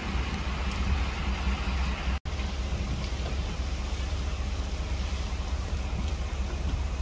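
Steady hiss of freezing rain falling on ice-coated trees and road, over a low steady rumble. The sound drops out for an instant about two seconds in.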